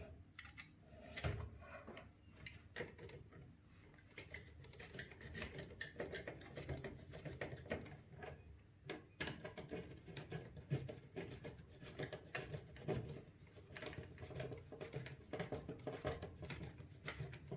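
Quiet, irregular small clicks, taps and scrapes of plastic and metal parts being handled as an AIO water-cooler pump block is fitted onto the CPU and its mounting screws are started by hand.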